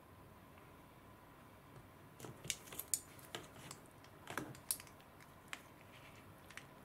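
Plastic chopsticks stirring instant noodles in a paper cup, clicking and tapping against the cup in a cluster of sharp clicks from about two seconds in until past the halfway mark.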